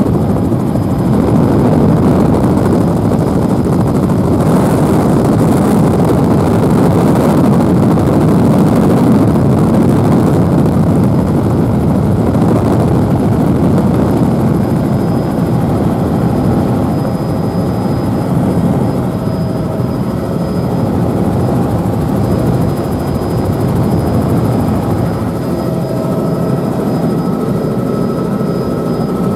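Helicopter engine and rotor running steadily in flight, heard loud from inside the cabin, with a faint high steady whine above the noise.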